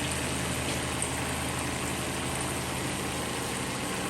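Recirculating shower pump humming steadily, with the shower head's water spray hissing into the shower pan.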